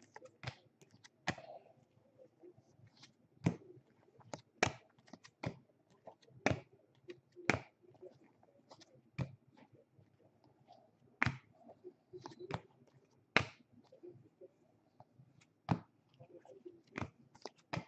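Baseball trading cards and packs being handled and flipped through by hand: irregular sharp clicks and snaps, about one or two a second, with quiet between them.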